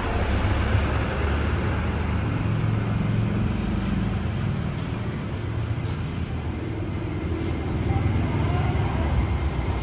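Steady low rumble of road traffic, swelling a little near the end.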